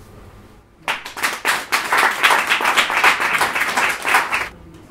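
Audience applauding, starting just under a second in and stopping shortly before the end.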